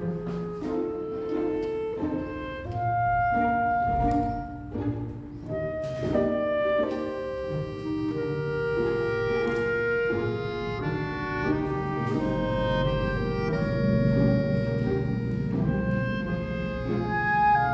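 Background instrumental music: a melody of held notes over a low accompaniment.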